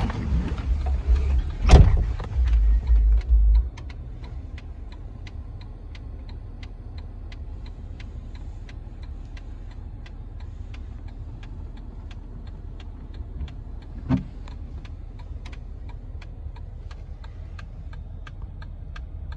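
The 2016 Jeep Wrangler's 3.6-litre V6 idles with a steady low hum inside the cabin, under an even ticking of about two to three clicks a second from the indicator flasher. For the first few seconds there is loud low rumbling with a sharp knock about two seconds in, and a single thump comes about fourteen seconds in.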